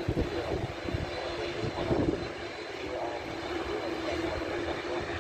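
ATR 72 twin-turboprop airliner running at speed along the runway: a steady engine and propeller drone with a held hum. Wind gusts buffet the microphone, loudest about two seconds in.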